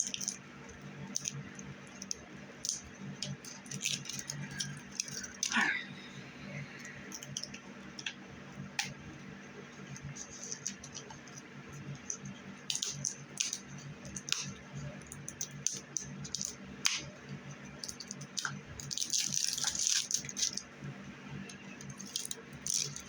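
Loose sand running and shifting inside a jar as it is tipped and handled, with scattered small clicks and brief hissing rushes of grains, the longest near the end. A short falling squeak about five seconds in.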